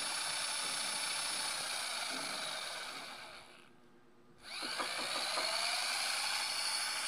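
Small electric motor of a mini USB turbo washing machine running with a steady whine. It winds down to near quiet about three seconds in, then starts again about a second later and rises in pitch as it spins up.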